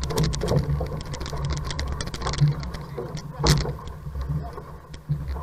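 Sea water rushing and splashing along an outrigger canoe's hull as the crew paddles, with a low rumble, rapid clicking and rattling, and one loud splash about three and a half seconds in.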